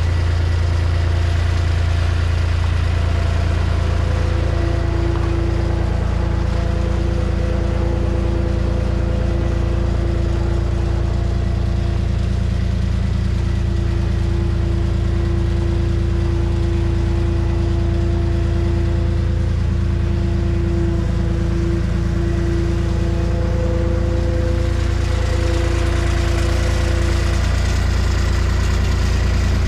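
Engine running at a steady idle, with an even tone held above the low hum for most of the stretch.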